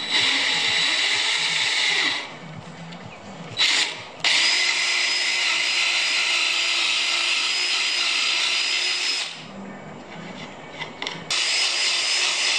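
DeWalt cordless drill drilling a dowel hole into the edge of a wood offcut, run in bursts: about two seconds at the start, a brief blip, a steady five-second run with a high motor whine, and a last run starting near the end.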